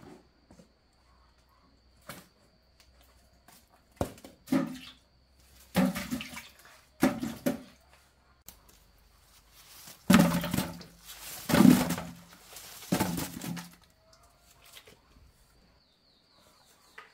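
Water splashing and pouring in a series of short bursts, the loudest and longest near the middle.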